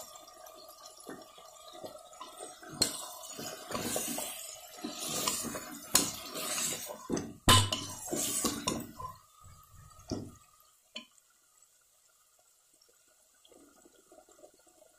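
A metal ladle stirs and scrapes thick mutton curry masala in an aluminium pressure cooker, with several sharp knocks of the ladle against the pot. The stirring stops about ten seconds in.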